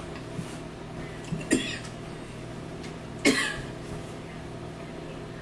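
A person coughing twice: a short cough about a second and a half in and a louder one just past the three-second mark, over a faint steady hum.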